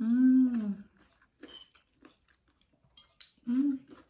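A woman eating with her mouth full: a drawn-out hummed 'mmm' at the start and a shorter one about three and a half seconds in, with soft chewing and small clicks of a spoon and fork against the dishes in between.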